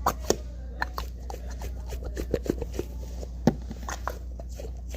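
Squishy toy being squeezed and handled: a string of irregular soft clicks and crackles, the sharpest one about three and a half seconds in.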